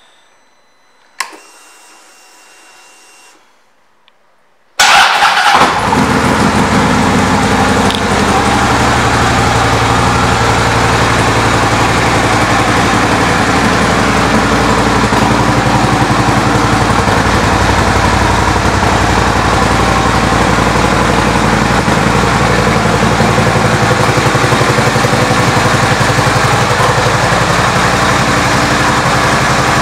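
Harley-Davidson Street Glide Special's V-twin with an aftermarket intake and Vance & Hines exhaust started up: a click and a faint whir, then the engine fires about five seconds in and settles into a steady loud idle.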